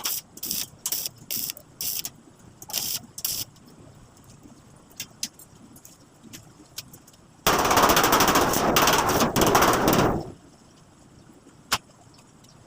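Welding arc crackling: a run of short tack-weld bursts, two or three a second, then one loud, steady crackling weld of about three seconds in the second half.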